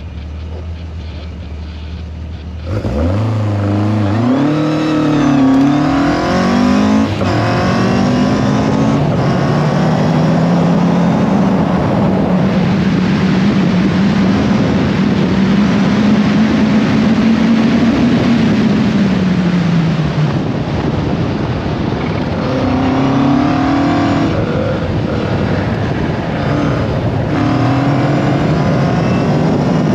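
Caterham race car's engine idling, then launching hard about three seconds in and accelerating through the gears, its pitch climbing and dropping back at each upshift. The revs hold steady for a stretch, fall away, then climb and drop through more shifts, over a constant heavy rush of noise.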